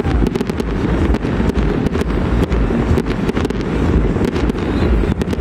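Fireworks going off in quick succession: a dense run of sharp bangs and crackles over a heavy, continuous low rumble of wind on the microphone.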